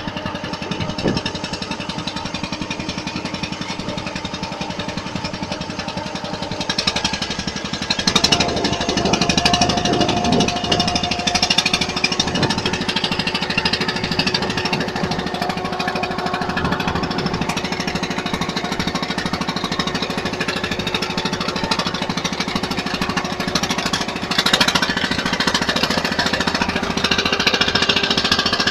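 A small wooden boat's engine running steadily close by, a fast hammering chug.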